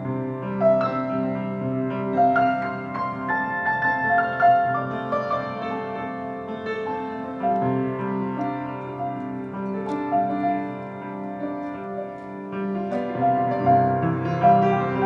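Solo piano playing a slow, gentle improvised-style piece, with notes sustained and overlapping under a low held bass.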